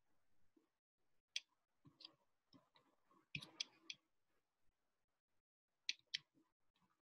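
Faint, scattered clicks of a computer mouse, with a quick run of several clicks a little over three seconds in, against near silence.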